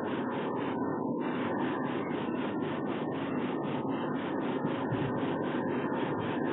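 Steady rushing noise of wind on an exposed nest-box webcam's microphone, with no falcon calls.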